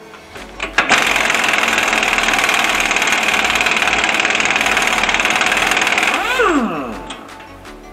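BJC 1550 pneumatic impact wrench hammering on a nut. After a couple of short blips it runs steadily for about five and a half seconds, then is released and its air motor winds down with a falling whine.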